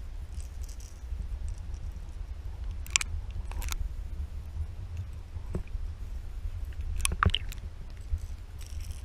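Muffled underwater sound picked up through a GoPro's waterproof housing: a steady low rumble of water moving against the camera, with a few sharp clicks and ticks scattered through it.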